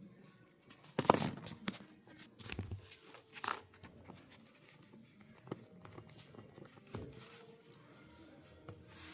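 Irregular handling noises: half a dozen sharp clicks and taps of small hard objects being set down or moved, with faint rustling between them.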